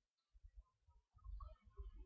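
Near silence: room tone, with a few faint low bumps from about a second in.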